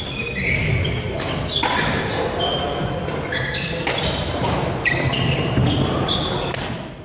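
Badminton rally on a wooden sports-hall floor: sharp racket strikes on the shuttlecock and short squeaks of court shoes, echoing in the large hall.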